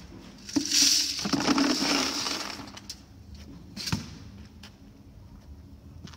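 Grit tipped and shaken out of a round metal bowl into a plastic tub, a rushing, rattling pour lasting about two seconds. About a second later comes a single sharp knock as the metal is set down.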